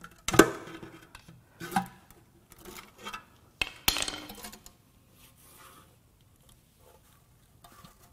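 Pry bar clanking and scraping against an engine oil pan as the pan is levered off the block. A sharp metal clank about half a second in is the loudest, with three more clanks and scrapes over the next few seconds, then only faint handling noise.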